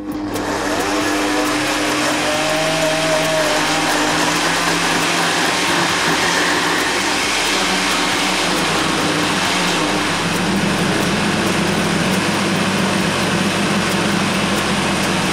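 Kenwood stand mixer's glass blender attachment switched on and running steadily, pureeing chunks of overripe banana. The motor's tone shifts about two-thirds of the way through.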